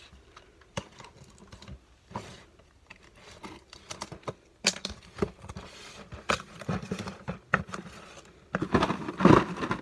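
Box cutter slitting the packing tape along the seam of a cardboard case: scattered clicks and scraping strokes. Near the end the cardboard flaps are pulled open with a louder rustle.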